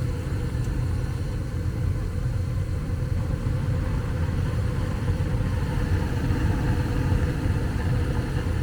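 ICP gas furnace running with its burners lit, a steady low rumble of flame and fan noise.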